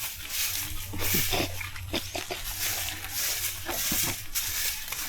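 Goats tugging at and chewing leafy branches: irregular rustling of leaves and short crunching clicks.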